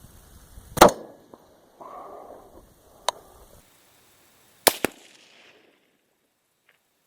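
Unsuppressed 5.56 rifle shots heard from downrange, near the targets: sharp supersonic cracks of bullets passing. The loudest crack comes about a second in, another near three seconds, and a quick double crack near five seconds.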